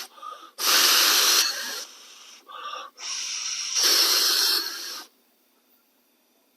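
Air blown by mouth through an Echo SRM-280S string trimmer's intake with the choke shut, wheezing and hissing past in three breaths, the last the longest. The air gets through because the warped air cleaner base does not seal against the choke butterfly, so the engine won't choke.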